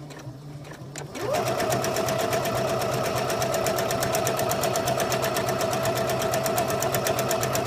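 Electric sewing machine stitching a seam through layered fabric: after a short pause and a click, the motor speeds up about a second in and then runs at a steady speed, the needle going in a fast, even rhythm.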